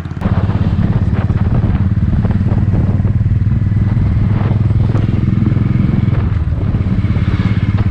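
Motorcycle engine running steadily while the bike is ridden, its firing pulses loud and even. It cuts in abruptly just after the start.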